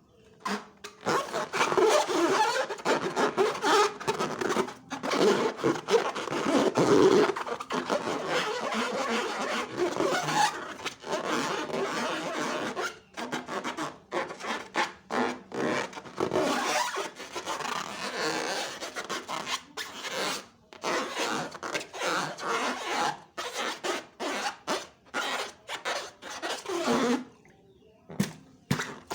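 Homemade slime being squished and worked by hand, wet squelching and rubbing in a long run of short pushes with brief gaps. It stops shortly before the end.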